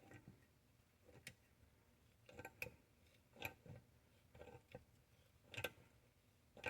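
Faint, irregular metallic clicks and ticks, about eight spread over several seconds, as a slotted pipe nipple is worked back and forth with a small pipe wrench to chase crusty pipe threads in an intake manifold's plug hole.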